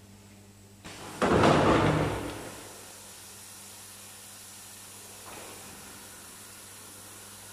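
WEGOMA WSA4V four-head PVC window welding machine starting its cycle: a loud burst of compressed-air hiss about a second in, lasting about a second as its pneumatic clamps and heads move, with a fainter air release a few seconds later over a steady machine hum.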